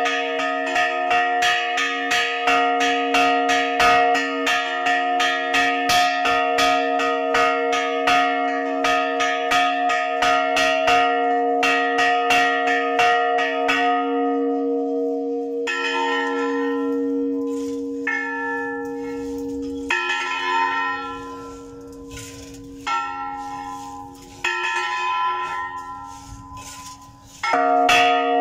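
Large church bell struck by its clapper, pulled by hand on a rope, ringing the tercera llamada, the third and last call before Mass. Rapid strokes, several a second, ring together for about half the time, then let the bell hum out. Single strokes follow a couple of seconds apart, the last one loud near the end.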